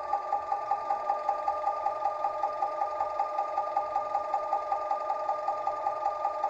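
Sound decoder (D&H SD21A-4) in a model E 95 electric locomotive playing electric-locomotive running sounds through a small speaker: a steady electric whine with a fast, even pulsing of about seven beats a second.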